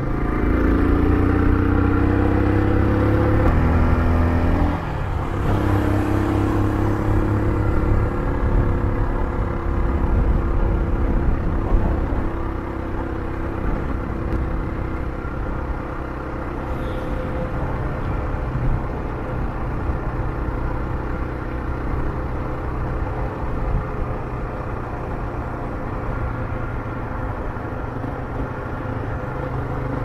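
Motorcycle engine under way, its pitch rising as it accelerates for the first few seconds. About five seconds in it drops sharply, as at a gear change, then runs steadier at a lower pitch with a low rumble.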